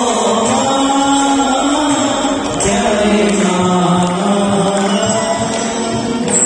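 Music with a singing voice holding long notes that slide from pitch to pitch.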